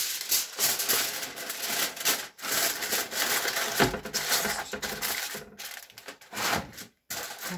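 Aluminium foil crinkling and rustling as it is handled, dying down near the end.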